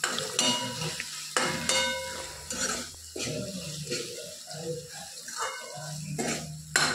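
Steel ladle scraping and clinking against a steel kadhai as onion and tomato masala is stirred, several sharp scrapes with a brief metallic ring, over a faint sizzle of the masala frying in oil.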